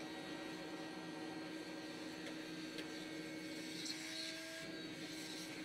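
Small handheld vacuum running steadily as it sucks dust out of a desktop PC case, a steady motor whine over a light rush of air, with a few faint ticks.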